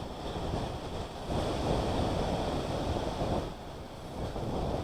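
Wind buffeting the microphone: a low, rumbling rush that swells about a second in and eases off near the end.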